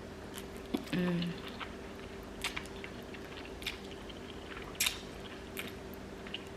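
Close-up mouth sounds of eating: scattered wet clicks and smacks of chewing, with a short hummed "mm" about a second in, over a faint steady hum.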